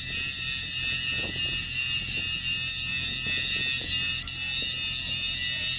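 Stick welding on a steel pipeline joint: the arc runs steadily with a high, buzzing hiss over a low hum.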